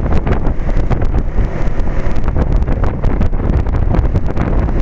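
1998 Trane XL1800 heat pump's outdoor condensing unit running steadily in cooling mode on its high stage, with the larger 5-ton reciprocating compressor working. Heavy wind rumble on the microphone rides over it.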